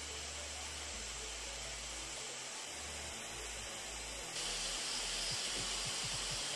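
Hot-air rework station blowing a steady hiss of hot air onto a surface-mount resistor to melt its solder for desoldering. The hiss grows a little louder and brighter about four and a half seconds in.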